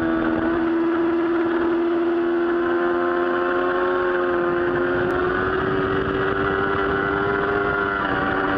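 Yamaha R6 inline-four engine running at high revs under steady throttle on track, its pitch climbing slowly with a brief dip near the end, over wind rush on the onboard camera's microphone.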